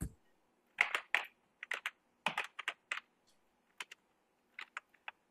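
Typing on a computer keyboard: an irregular run of sharp key clicks.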